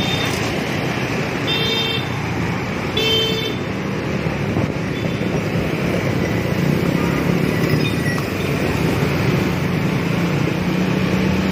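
Motor scooter traffic heard from a moving scooter: steady engine and road noise, with two short horn toots, one about one and a half seconds in and one about three seconds in.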